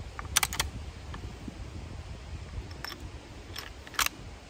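Metallic clicks from loading and handling a Marlin 336 .30-30 lever-action rifle: a quick double click under a second in, a few lighter clicks, and the loudest clack about four seconds in.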